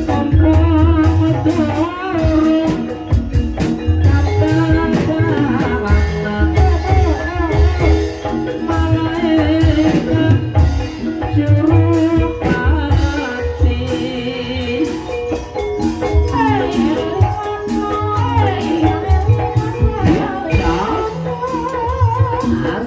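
Gending ebeg, the Banyumas gamelan music that accompanies the kuda kepang horse dance, playing continuously. Drum strokes and a metallophone melody run under a singer's voice.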